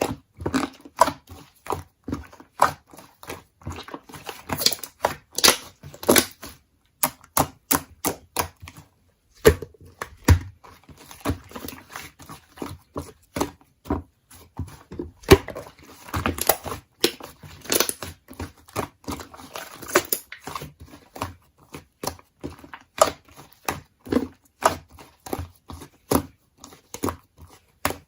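Slime being squeezed, pressed and poked by hand, giving a run of irregular sticky clicks and small pops, several a second.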